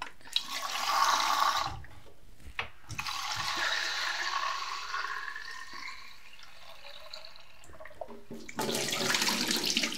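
Water running from a kitchen tap into a sink as a container is rinsed out, in three spells with short pauses between.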